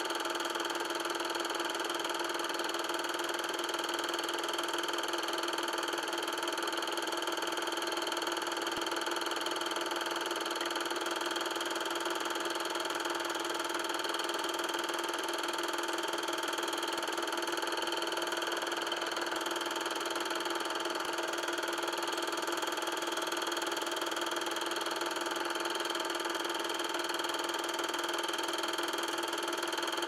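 8mm film projector running steadily: a constant mechanical hum made of several steady tones over a whirring hiss, unchanging throughout.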